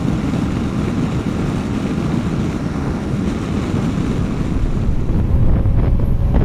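Wind rushing over a motorcycle rider's microphone with the bike's road and engine noise underneath while riding at speed, growing a little louder about five seconds in.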